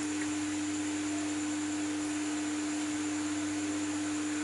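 A steady hum at one pitch with a faint even hiss beneath it, unchanging throughout; no clicks or handling sounds stand out.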